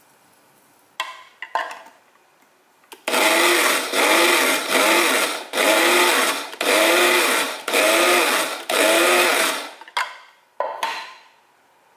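Electric blade spice grinder grinding lupin flakes coarsely, run in about six short pulses of roughly a second each, the motor whirring up and down in pitch with each pulse. A couple of sharp clicks come before and after the pulses.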